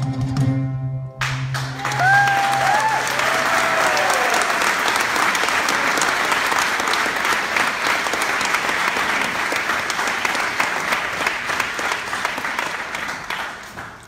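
The last held note of an oud-led ensemble, then audience applause breaking out about a second in, with a few short whoops in its first seconds; the clapping dies away near the end.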